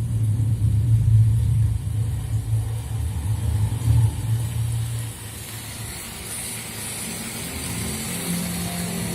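A low vehicle-engine rumble, loud for about five seconds, then dropping away and leaving a hiss. Music comes in near the end.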